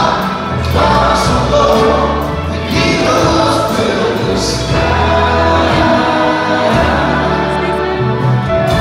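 Live rock band with an orchestra playing loudly: electric guitar, upright bass, drums and piano over strings, with voices singing, heard from the audience in a concert hall.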